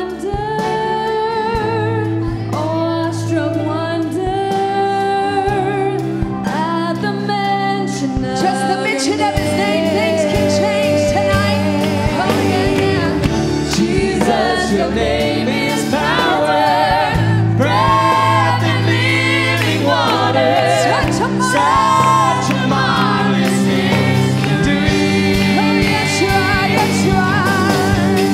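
Church worship team and choir singing a worship song over held instrumental bass notes; the music grows fuller, with added percussive hits, from about eight seconds in.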